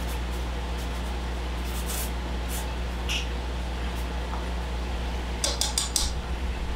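Steady low hum in a kitchen, with a few short rustles and light clicks as wooden chopsticks stir in a stainless pot. Near the end comes a quick run of four rubbery rustles as a black glove is tugged into place.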